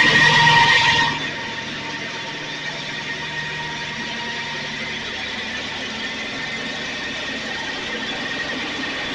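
John Deere LX255 lawn tractor's engine running, loud for about the first second and then settling to a steady run with a steady high whine.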